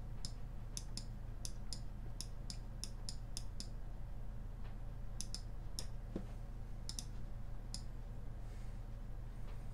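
Computer mouse button clicking in quick, irregular runs, faint and sharp, over a steady low hum.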